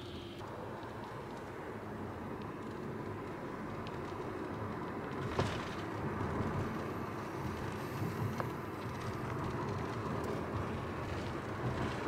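Road and engine noise inside the cabin of a moving Hyundai car, a steady low rumble, with one brief knock about five seconds in.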